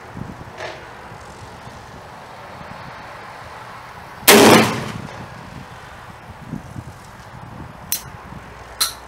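An H&R Tamer single-shot break-action shotgun fires once about four seconds in, loading number 6 birdshot: a single loud report that rings on for about half a second. Near the end come sharp metallic clicks as the action is broken open.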